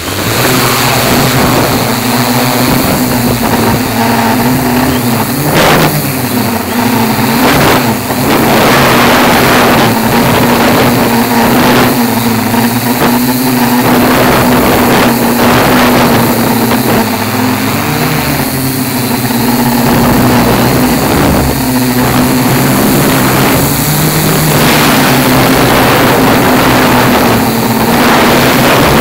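Tarot 680Pro hexacopter's six motors and propellers running at flight power, a steady whirring hum whose pitch wavers as it takes off and climbs, heard from the onboard camera. Gusty wind rushes across the microphone throughout.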